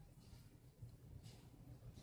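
Near silence: room tone with a couple of faint clicks from a plastic toy pistol being handled.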